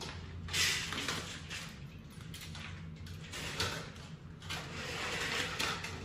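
Vertical window blinds pushed aside by hand, the slats brushing and scraping against each other in a few bursts over a steady low hum.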